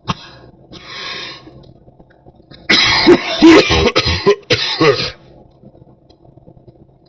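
A person's deep cough: a loud fit of several coughs in a row lasting about two and a half seconds, starting near the middle. A cold or flu cough, by the person's own guess.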